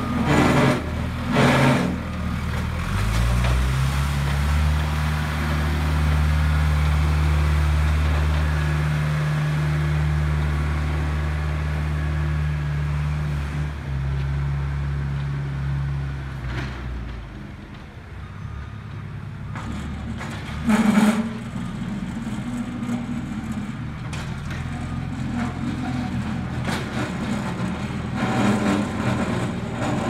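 Diesel engine of a backhoe loader revving up about three seconds in and running steadily, then dropping away about halfway through as the machine moves off down the milled street. A few short knocks sound near the start, about two-thirds of the way in (the loudest) and near the end.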